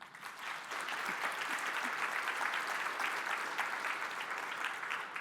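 Conference audience applauding, a dense patter of many hands clapping that swells in the first second and begins to fade near the end.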